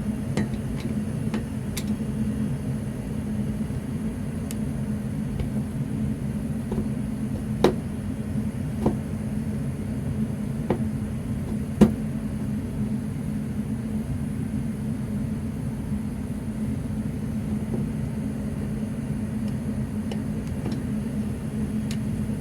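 A steady low rumble throughout, with a few sharp clicks and knocks between about eight and twelve seconds in as a fire alarm electrical back box is worked loose from a drywall wall.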